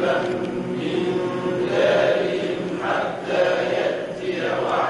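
A group of voices reciting the Quran together in slow, chanted unison, repeating a verse as a class drill.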